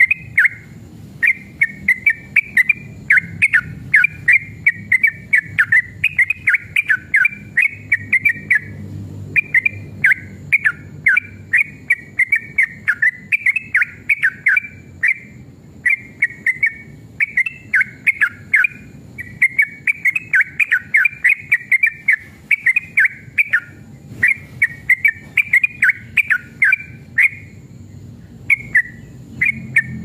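Yellow-vented bulbul (trucukan) singing a long, rapid chattering song of quick chirped notes in runs of one to three seconds with only short breaks between them.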